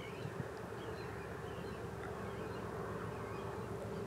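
Passing container ship's engines giving a steady low drone with a constant hum, and faint bird chirps over it.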